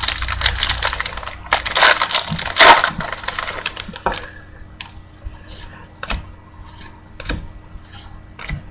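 Foil wrapper of a 2012 Score football card pack crinkling loudly as it is torn open, for about three seconds. Then light clicks and rustles as the cards inside are handled.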